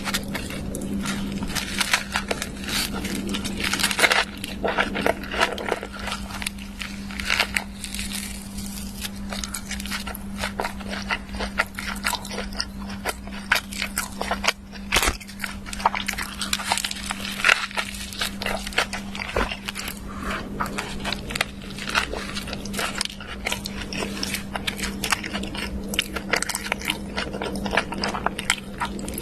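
Close-up eating sounds: irregular crunching and crackling bites and chewing, over a steady low hum.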